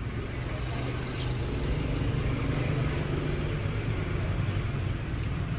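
Steady low mechanical hum with a faint noisy haze, like a motor or traffic running in the background, with a few faint ticks.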